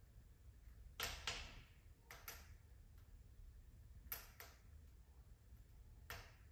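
Wood fire crackling in a fireplace: sharp pops come in three quick pairs, then a single pop near the end, over a faint low hum.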